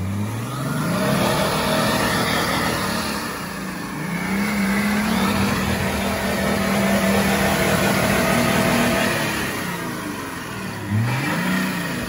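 Off-road 4x4's engine revving hard under load while trying to drive out of a muddy pit: it climbs about a second in, is held high for several seconds, drops back around nine seconds in and climbs again near the end.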